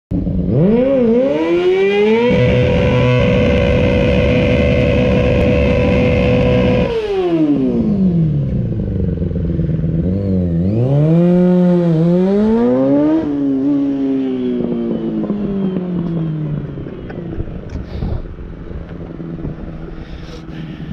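Yamaha R6 inline-four sportbike engine revved hard for a burnout: a few quick rising revs, then the pitch held steady and high for about five seconds before dropping. It revs up again and the bike pulls away, the engine note falling and fading as it goes.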